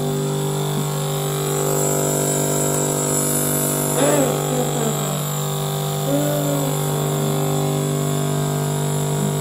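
Compressor nebulizer running with a steady, even hum while it delivers the inhalation mist. Two brief pitched sliding sounds come over it about four and six seconds in.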